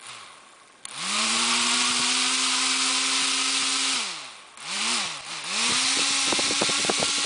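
Small 130-size brushed DC motor, refitted with ball bearings and spinning a small propeller on a 12-volt supply: a steady high whine with a rush of air from the prop. It spins up quickly about a second in, winds down and picks up again twice around four to five seconds, then runs steady with a run of quick clicks near the end.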